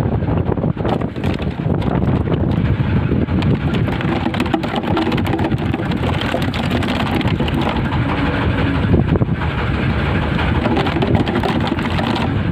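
Boat engine running with a steady low rumble, with wind buffeting the microphone.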